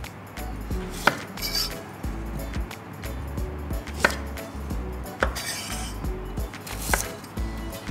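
Chef's knife slicing through a raw sweet potato onto a wooden cutting board: four sharp knocks of the blade on the board, a second or more apart, over background music.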